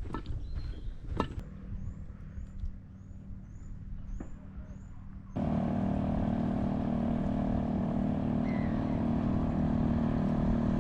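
A motor running steadily at an even pitch, cutting in suddenly about halfway through. Before it comes a low rumble with a few sharp knocks and a quick run of short high chirps.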